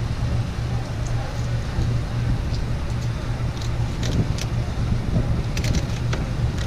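A steady low motor hum, with a few light clicks and taps about four to six seconds in.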